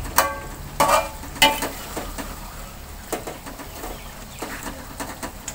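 Metal spatula scraping and clanking against a wok while stirring chicken pieces in spice paste, with a low sizzle underneath. The strokes come in a quick run in the first second and a half, then fewer and lighter.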